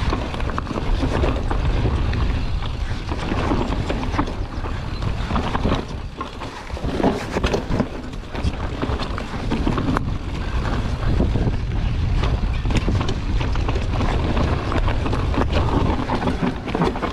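Mountain bike descending a rooty dirt trail: tyres rolling and skidding over dirt and roots, with frequent short knocks and rattles from the bike, over steady wind rumble on the camera microphone.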